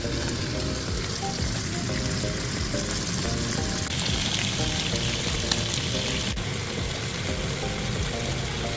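Food sizzling as it fries in a pan, a steady hiss that grows louder for about two seconds in the middle.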